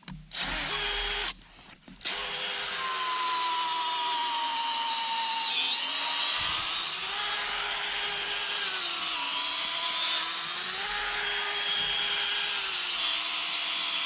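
Electric drill turning an auger bit into a timber beam: a short burst of the motor, a brief stop, then a steady run whose pitch sags and recovers several times under load. The brand-new auger bit is not pulling itself into the wood.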